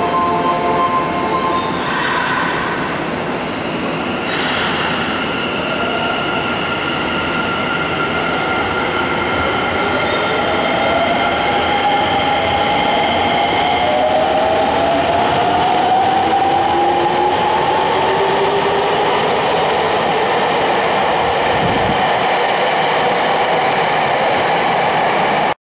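Nagoya subway 6050-series train pulling out of an underground station. After steady tones from the standing train and two short clatters, the VVVF inverter and traction motors whine in several rising tones as it accelerates away over a steady rumble of wheels.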